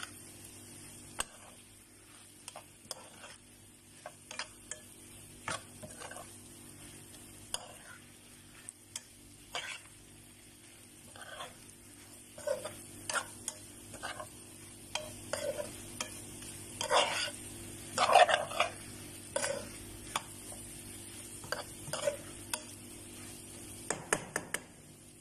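A spatula stirring and scraping chopped bitter gourd and scrambled egg around a frying pan in irregular strokes, the strongest a little past the middle, over a faint steady sizzle from the pan.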